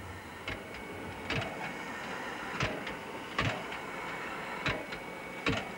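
Victorian Railways K-class steam locomotive giving six sharp knocks, irregularly about a second apart, over a faint steady hiss.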